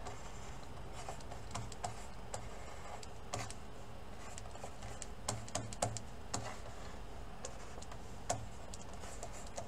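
Faint, scattered taps and light clicks of a stylus nib on a graphics tablet during sketching with short strokes, over a faint steady hum.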